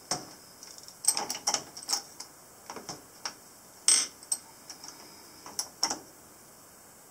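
Metal reloading press being cycled by hand while loading 44-40 cartridges: a run of sharp clicks and clunks from the handle, ram and shell plate, the loudest about four seconds in, stopping about six seconds in.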